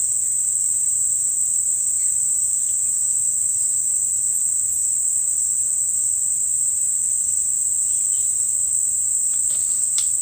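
Steady, high-pitched insect chorus, continuous and unbroken, with a few faint clicks near the end.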